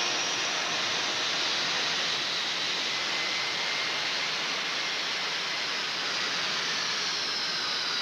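Jet aircraft engines running: a steady rushing roar with a thin high whine over it.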